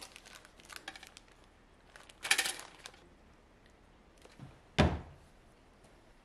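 Plastic party supplies being handled in a wooden drawer: light clicks, then a brief crinkly rustle of plastic about two seconds in. Near the end a single solid thump as the wooden drawer is pushed shut.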